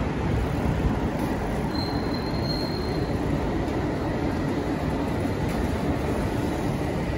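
Steady rumble of city street noise, with a thin high-pitched squeal lasting just over a second about two seconds in.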